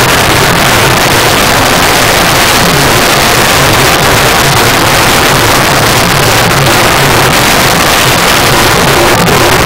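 Very loud music from a DJ speaker stack, overloaded and distorted into a steady roar of noise with a low bass pulse underneath.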